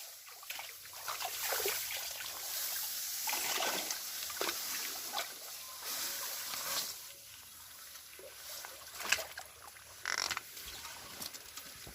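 Water splashing and sloshing in irregular strokes, with a sharper splash about nine seconds in.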